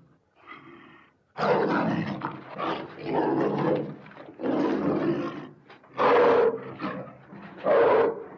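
Sound-effect vocalisations for Dinofelis, an extinct big cat: a faint short growl, then a series of about six loud, rough big-cat growls of up to a second each.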